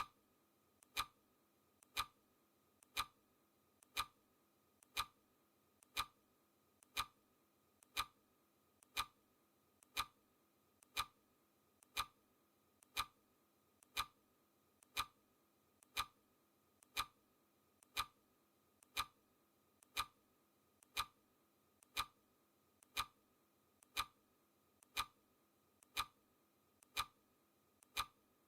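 Clock ticking sound effect, steady and crisp, with one loud tick each second and a fainter click in between.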